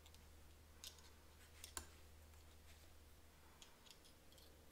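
Faint clicks of a steel digital caliper's jaws and slide being closed on a valve spring: two sharper clicks in the first two seconds, then a few lighter ticks near the end, over a low steady hum.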